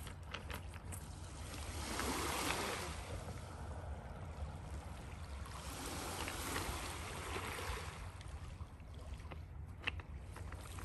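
Small lake waves washing in over a cobblestone beach, swelling twice, about two and six seconds in, over a steady low wind rumble on the microphone. A few sharp clicks of stones underfoot.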